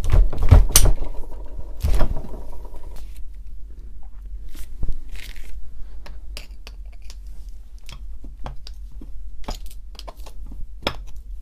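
A heavy Wacker EHB10/100 demolition hammer is knocked and shifted about on a workbench in the first two seconds. Then a screwdriver clicks and scrapes in short, irregular strokes as it works loose the screws of a cover plate on the metal housing.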